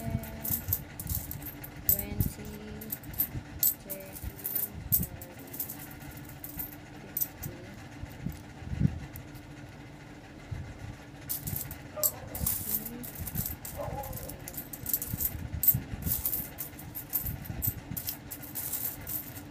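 Metal Philippine peso coins clinking together as they are picked up, slid and stacked by hand during counting, on a cloth-covered surface: quick clusters of small clicks, with a short lull about halfway through.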